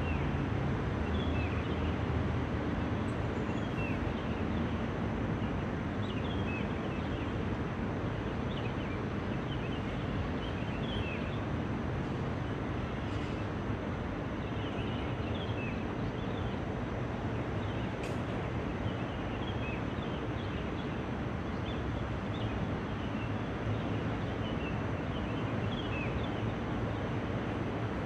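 Steady outdoor city background: a low rumble of distant traffic with many faint bird chirps over it.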